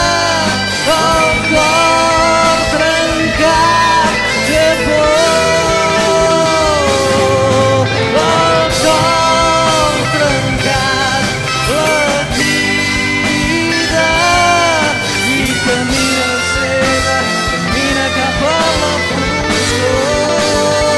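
Instrumental passage of a rock song: a lead melody with pitch bends and vibrato over bass and a drum kit.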